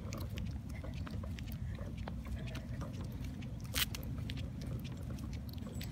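Walking on an asphalt street with a handheld phone: a steady low rumble of handling noise, with scattered light clicks and taps and one sharper click about four seconds in.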